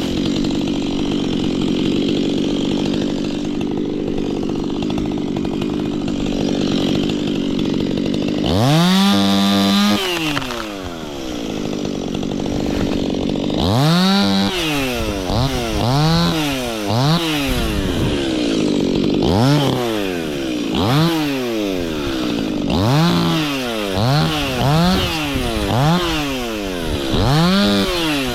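Stihl two-stroke chainsaw running steadily at high speed for the first several seconds. It is then revved up and down: once around nine seconds in, then in a run of quick throttle blips, about one a second, through the second half.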